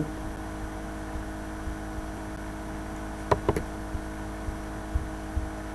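Steady electrical hum of the recording setup, with two quick clicks of a computer mouse button about three and a half seconds in and a few faint ticks after.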